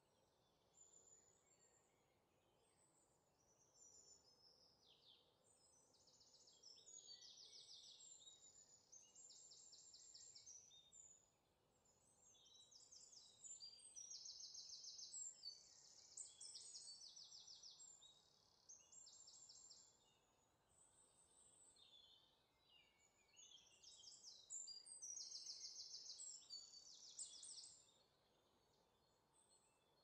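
Faint songbird song: phrase after phrase of quick, high-pitched trills and chirps, louder in the middle and again near the end.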